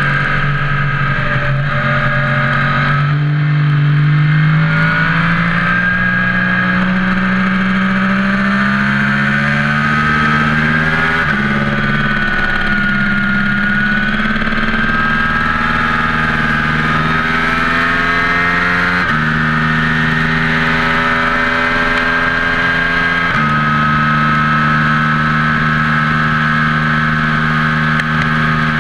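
An engine running steadily, its pitch stepping suddenly to a new level several times and drifting slowly in between, with a thin high whine above it.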